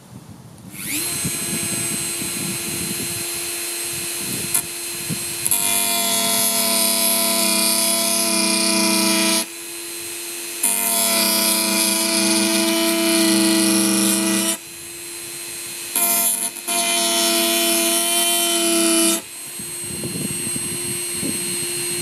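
Handheld rotary tool with a sanding drum spinning up about a second in, then running with a steady whine while sanding a blank of unbleached bone. The grinding swells louder and drops back several times as the drum bears on the bone.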